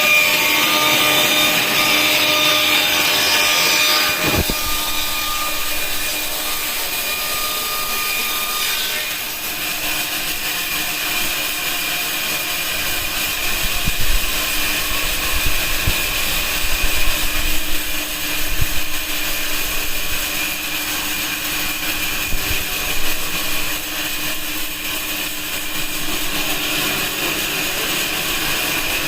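Circle-cutting band saw running and sawing through plywood: a steady machine noise with a constant high tone, and scattered knocks through the middle.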